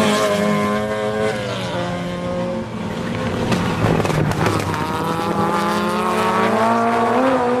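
Racing car engine at high revs. The pitch drops about a second and a half in and climbs again from about five seconds.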